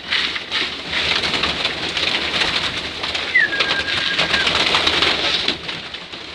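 A crowd of young racing pigeons mobbing a feeding trough: a dense, steady patter of wingbeats and beaks pecking grain, with cooing. Grain is poured into the trough at the start. There is a brief whistle-like tone about halfway through.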